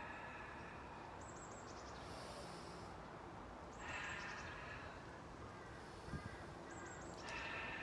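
A person breathing audibly through the nose while holding a balancing yoga pose: three soft breaths about three seconds apart, with a soft low thump about six seconds in.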